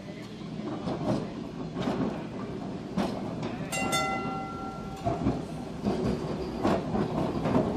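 Melbourne W-class electric tram rolling slowly towards the listener, its steel wheels rumbling and knocking over the rails, growing louder as it nears. About four seconds in there is a single ringing clang of its gong.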